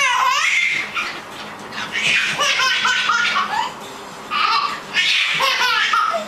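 Young child laughing in repeated high-pitched bursts, each falling in pitch.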